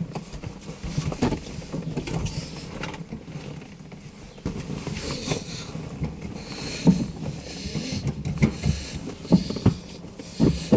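Handling noises in a car cabin: rustling and several sharp knocks, most of them in the second half, as the clutch is pressed and the gear lever is worked into neutral.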